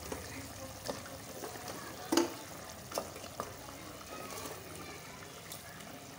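Onion gravy bubbling in a pot, with a few sharp knocks and plops as raw mutton kofta meatballs are put into it, the loudest about two seconds in.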